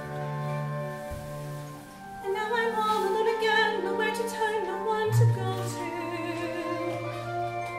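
A woman singing a musical-theatre melody with vibrato over held accompaniment chords; the voice comes in about two seconds in and a new low chord note enters near the middle.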